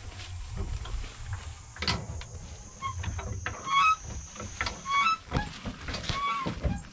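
Scattered metal knocks and clunks of hand-tool wheel-changing work on a car, mixed with a few short, high squeaking chirps and a steady high whine in the background.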